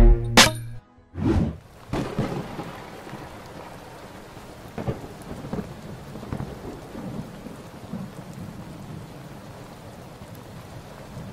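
Thunderstorm: steady rain with rolls of thunder, the loudest a little over a second in and smaller rumbles after it. A music track cuts off in the first half-second.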